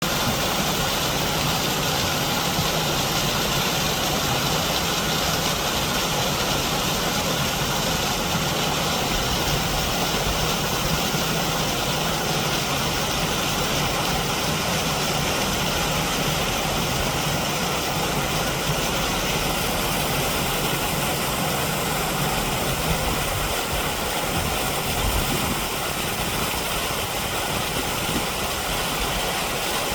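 Mountain stream water rushing steadily, an even unbroken rush.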